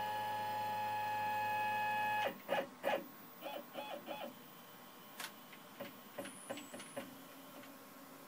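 Stepper motors of a Shapeoko CNC whining steadily during a jog move and stopping abruptly after about two seconds, then three short blips of the same whine as the axes are nudged in small steps. A few light clicks follow near the end.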